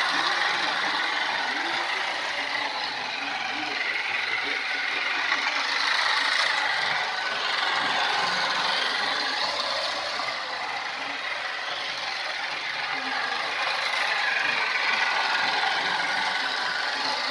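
Toy train's small electric motor and plastic gears whirring steadily as the locomotive pulls its cars around the track, swelling and fading as it circles.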